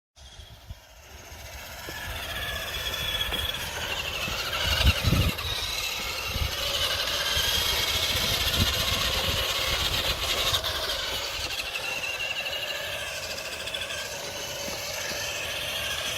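Electric motor and gearbox of a 1985 Radio Shack radio-controlled 4x4 toy truck whining as it drives, the pitch wavering up and down with the throttle. A low thump about five seconds in, and another a few seconds later.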